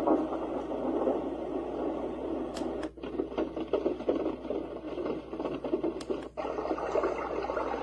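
Sleep sound machine playing one of its nature-style noise sounds through its small speaker, a rough, crackly steady noise that cuts out briefly twice.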